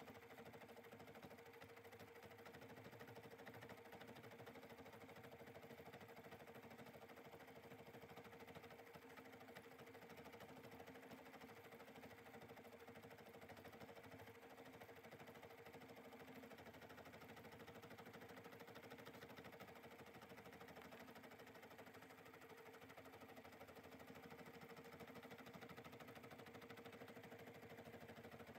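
Bernina 790 sewing-and-embroidery machine running an embroidery stitch-out: a faint, steady whir of its motor and needle mechanism.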